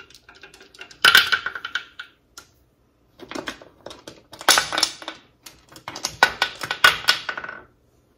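Wing-nut clamps on an All American cast-aluminum pressure canner being unscrewed and their hinged bolts swung down, clicking and clanking against the metal pot in three bursts of a second or so, some strikes ringing briefly. The canner has cooled to zero pressure and the lid is being released.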